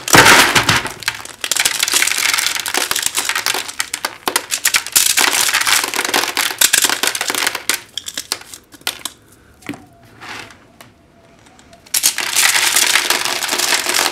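Dry field corn kernels crackling and rattling off the cob as an ear is twisted through a Lee Mfg Co high-density polyethylene hand corn sheller, the kernels falling into a bucket. The crunching stops for a few seconds about two-thirds of the way through, then starts again.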